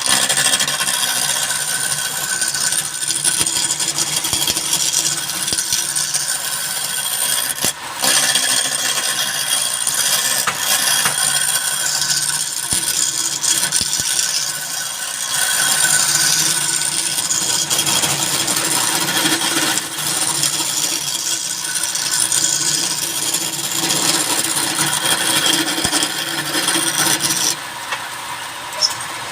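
Wood lathe running with a cutting tool working the spinning wood: a steady hum with a continuous scraping hiss over it. It breaks off briefly about eight seconds in and falls quieter near the end.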